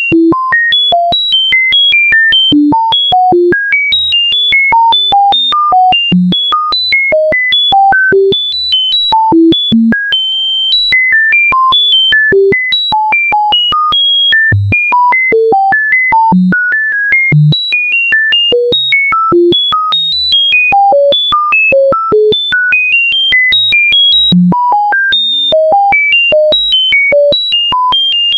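Computer-generated sine-tone beeps from a Pure Data patch, about three short notes a second. Each beep jumps to a new random pitch, from low boops to high beeps.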